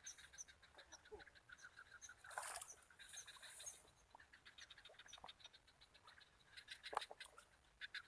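Faint wildlife calls: a short high chirp repeated a few times a second and rattling trains of quick pulses. A brief rushing noise comes about two and a half seconds in.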